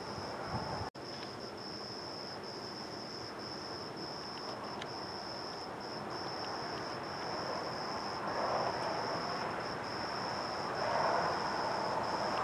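Crickets trilling steadily in one continuous high-pitched note. Beneath it runs a soft rushing noise that swells twice in the second half, like distant traffic. The audio drops out for an instant about a second in.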